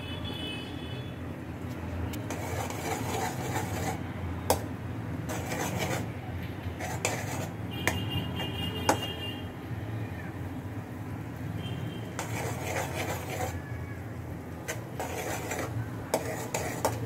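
Crushed garlic and cumin frying in butter and oil in a pan on a high flame, with a spatula stirring and knocking sharply against the pan several times.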